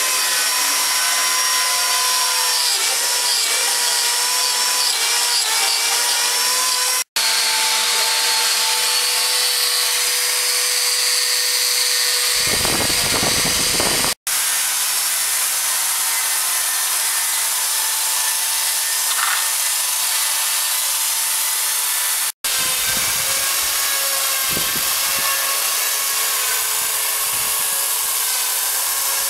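A power tool's motor running steadily with a held whine as it works wood. The sound comes in four stretches, each broken off by an abrupt short cut.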